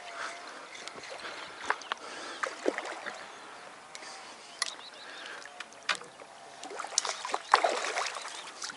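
Water splashing as a hooked carp fights at the surface near the landing net: a few short, sharp splashes in the first seconds, then a longer, louder burst of splashing about seven seconds in.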